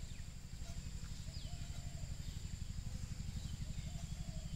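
Outdoor plantation ambience: a steady high insect drone with a few short bird chirps and one falling whistle, over a continuous low rumble.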